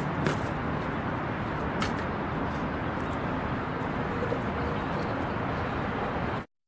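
Steady outdoor street background noise, with a sharp click about a third of a second in and another near two seconds. The sound cuts off abruptly shortly before the end.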